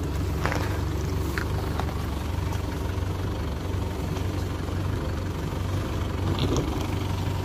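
SUV engine idling steadily, a low even hum, with a few faint clicks over it.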